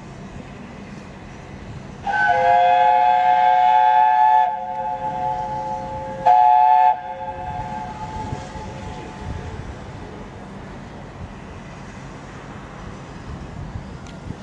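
Steam whistle of the Peppercorn A1 Pacific locomotive 60163 Tornado, several tones sounding together: one long blast of about two seconds, then a short second blast, over a low rumble from the moving train.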